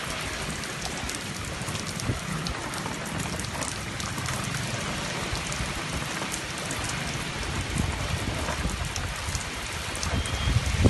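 Heavy rain pouring steadily in a gusty storm, with wind tossing the trees. A louder low rumble builds near the end.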